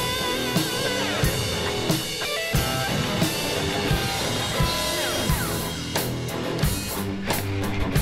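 Background music with guitar and a drum kit keeping a steady beat.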